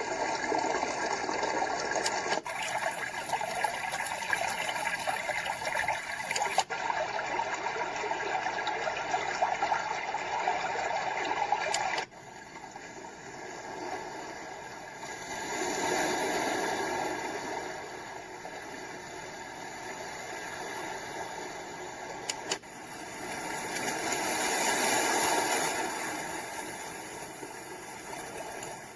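Magicteam white noise machine stepping through its built-in nature sound tracks, each a steady rushing hiss. The sound changes abruptly with a faint click about two, six and twelve seconds in. From about twelve seconds a rushing-water track swells and ebbs slowly, twice.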